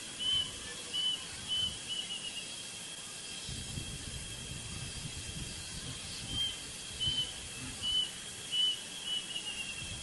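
Plaintive cuckoo singing: evenly spaced whistled notes, about two-thirds of a second apart, each ending phrase breaking into a quick falling trill. One phrase ends about two seconds in and another begins about six seconds in.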